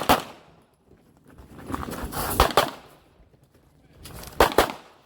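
Glock 26 9 mm pistol firing during an IDPA stage: a single shot at the start, then two quick pairs (double taps) about two seconds apart.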